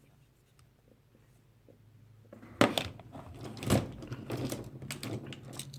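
Sharp clicks and knocks of a vintage scout pocket knife being handled, starting a couple of seconds in: two loud ones close together, then a run of smaller clicks.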